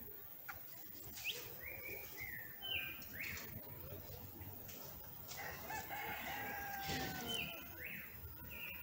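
Bird calls: a series of short, high calls, several a few seconds apart, with a longer, falling call a little after the middle.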